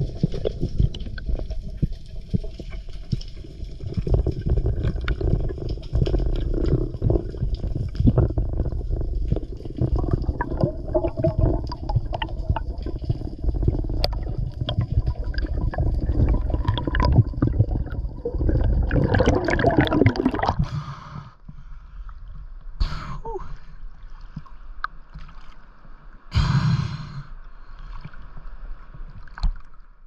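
Underwater camera sound: water rushing and bubbling against the housing as a free diver swims, with many small clicks and knocks. After about twenty seconds it grows quieter, broken by a couple of short louder bursts.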